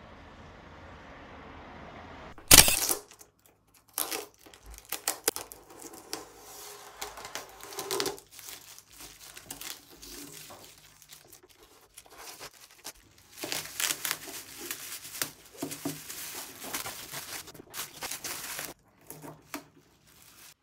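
Protective plastic film being peeled off a convex mirror and crumpled by hand: a run of irregular crinkling and tearing. A single sharp knock, the loudest sound, comes about two and a half seconds in.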